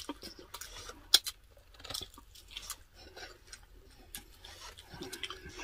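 Close-miked chewing and lip-smacking of people eating a meal: a run of short, wet clicks, with one sharper click about a second in.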